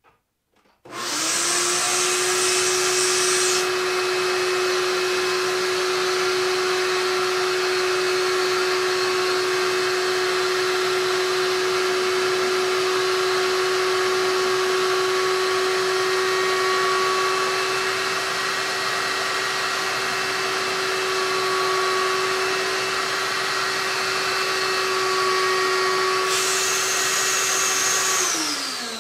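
Shop vac running steadily, drawing air through a Dremel VRT1 vacuum-powered rotary tool that has a sanding drum fitted. A high turbine whine is heard only briefly after start-up and again near the end, when the drum is off the wood. Between those moments the drum is pressed into pine and the tool is too gutless to keep its speed. Near the end the motor is switched off and its pitch falls away.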